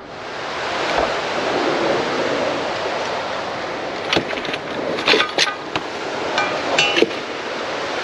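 Steady rushing of a swollen mountain stream. Several sharp clinks and knocks come between about four and seven seconds in.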